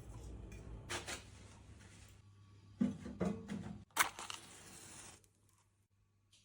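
A few clicks and knocks of objects being handled. About four seconds in, a sharp click is followed by a second of rustling noise, and then it falls nearly quiet.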